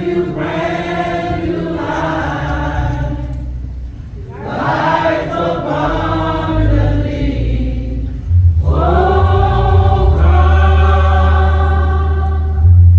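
A church choir singing a slow gospel song in long held phrases, over deep sustained bass notes, with short breaks between phrases about four and eight and a half seconds in.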